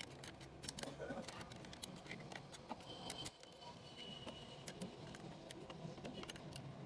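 Faint, irregular small metal clicks and taps as parts and a thin pick are worked inside a Toyota Hiace's transmission case.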